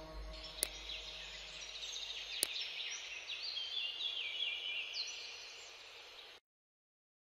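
A run of high chirping, warbling sounds with two sharp clicks, cutting off suddenly about six seconds in.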